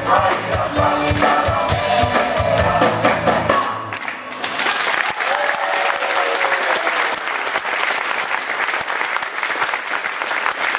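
Choir with a small band of drums and guitar singing a final chord that ends about three and a half seconds in, followed by audience applause.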